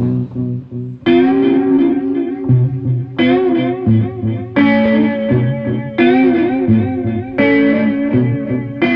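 Guitar playing an instrumental passage of a song, with chords struck about every second and a half and each left to ring. Low bass notes change beneath the chords.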